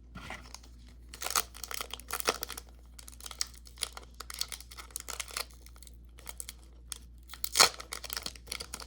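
Foil wrapper of a Pokémon trading card booster pack being torn open and crinkled in the hands, in irregular crackles with one louder rip near the end.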